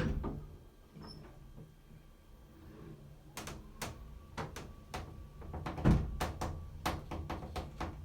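Kitchen handling sounds: a string of light, irregular clicks and knocks, with one heavier thump about six seconds in, after a loud motorised noise cuts off at the very start.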